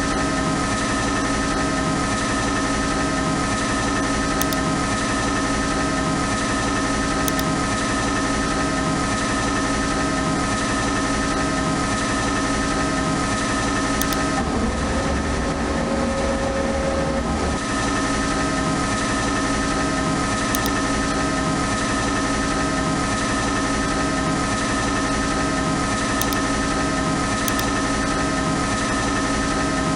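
CNC lathe running a G92 threading cycle: a steady machine hum made of several constant tones, with a low pulse about every one and a half seconds. For a few seconds around the middle, a higher whine and a deeper rumble join in, as an axis move changes.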